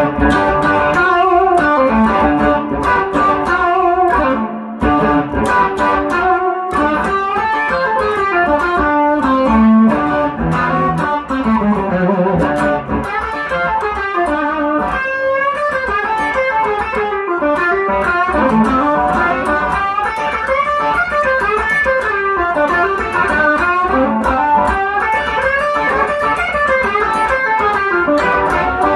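Electric guitar playing single-note lines and chords with string bends: a 1957 Fender Esquire fitted with a 1950s Fender flat-pole lap steel pickup, plugged straight into a 1965 Fender Deluxe Reverb amp. The tone has some breakup and attack.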